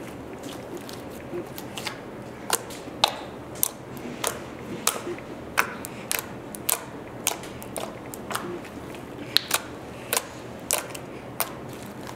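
Pink glue-and-borax slime being kneaded and poked by hand, giving irregular sharp clicks and pops, about one or two a second.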